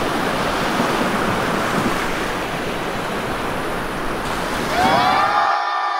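Loud, steady rushing and splashing water noise. Near the end it gives way to a tone with many overtones that glides up and then holds.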